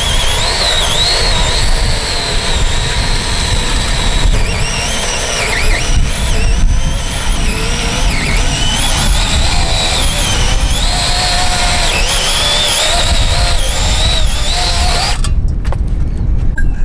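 Handheld power tool running as it cuts apple tree branches, its motor pitch wavering up and down with the load and stopping abruptly about fifteen seconds in.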